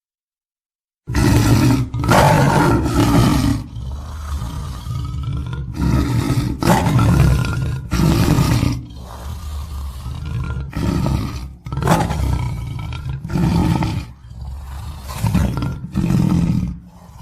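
Tiger roaring and growling in a string of loud roars, each one to two seconds long, that start and stop abruptly. About a second of silence comes first.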